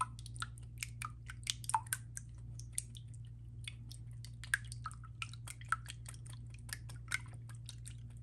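Wire whisk beating raw eggs in a glass bowl: quick, irregular clicks of the whisk wires against the glass, with a wet squish of the egg.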